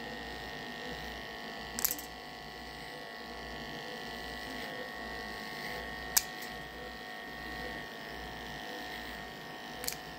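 Electric animal hair clippers running steadily while shaving a dog's abdomen before spay surgery. Three sharp clicks come about two seconds in, about six seconds in and near the end.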